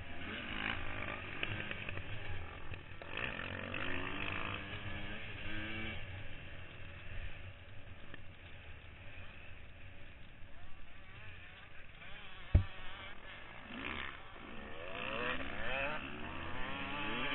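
Motocross dirt bike engine revving up and down as the rider races, with wind noise over it. A single sharp knock sounds about two-thirds of the way through, and the engine climbs in pitch again near the end.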